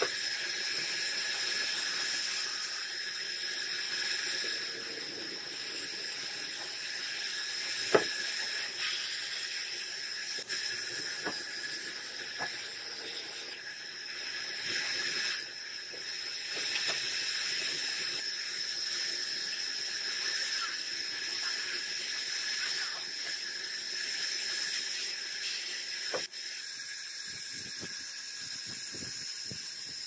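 Band saw running and cutting through thick wooden blocks: a steady high whine with the hiss of the blade in the timber, and one sharp knock about eight seconds in.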